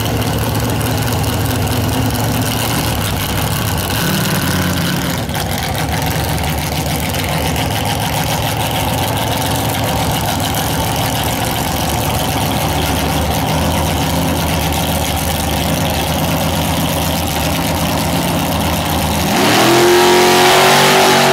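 V8 engine of a two-seat dragster idling steadily. Near the end the revs climb sharply and it gets louder as the dragster launches.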